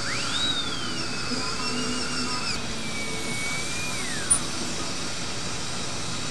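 Dental drill handpiece whining as it spins up, holding a high pitch that wavers as the burr shapes the new bridge on the front teeth, then winding down about four seconds in. A steady hiss of suction runs underneath.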